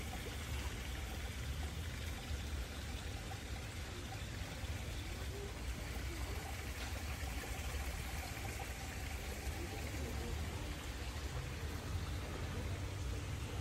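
A steady rushing noise, even throughout, with a deep rumble underneath.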